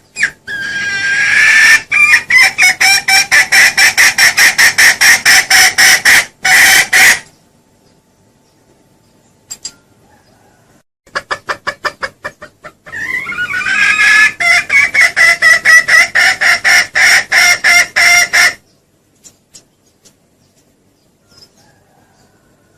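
Junglefowl lure call: rapid, evenly pulsed clucking at about four or five notes a second, in two long runs of about seven seconds each with a pause between them.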